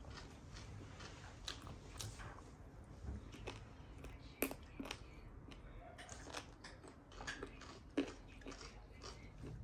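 Close-miked chewing and mouth sounds of a person eating rice and curry with her fingers: soft, irregular clicks and smacks, two sharper ones about four and a half and eight seconds in.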